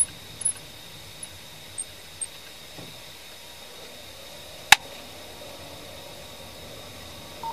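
Steady cabin noise inside a slowly moving police patrol car, with a faint high whine. A few small ticks come in the first two seconds, and one sharp click a little under five seconds in.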